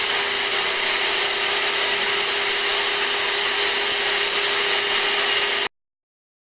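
MPCNC router spindle and vacuum dust shoe running together with a compressed-air jet hissing at the bit: a loud, steady hiss over a steady hum-like tone. It cuts off suddenly about five and a half seconds in.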